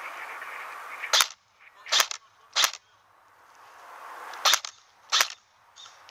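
Airsoft replica firing five single shots, each a sharp snap, unevenly spaced over about four seconds, over a fainter rustling hiss.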